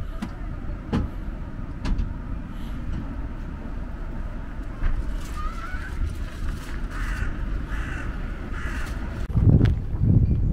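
A crow cawing three or four times in the middle, over a low wind rumble on the microphone that grows louder near the end.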